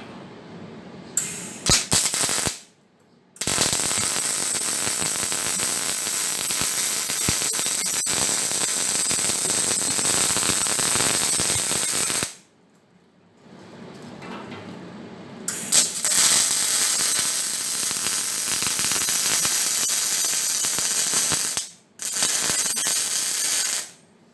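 Arc welding of plug welds in steel. A few short bursts are followed by two long continuous runs of about nine and six seconds, then a last run of about two seconds near the end.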